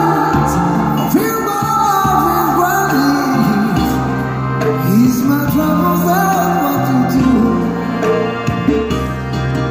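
A man singing through a busker's small amplifier speakers over instrumental accompaniment, his voice gliding between held notes.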